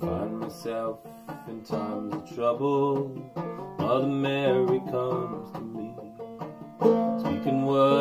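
Banjo played clawhammer style in sawmill tuning (gDGCD, tuned lower), picking a steady instrumental break of plucked, ringing notes.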